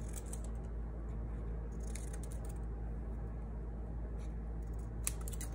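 Scissors snipping small squares off a strip of white paper: a few short, sharp snips, the loudest near the end, over a steady low hum.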